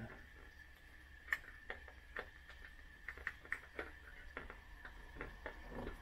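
Faint, irregular light clicks and taps of a wire being handled and worked against the van's metal door pillar, over a faint steady high tone.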